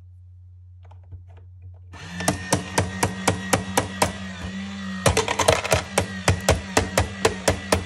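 Battery-powered football coin bank toy set going by a coin: an even, rapid clicking about four times a second over a steady hum, starting about two seconds in.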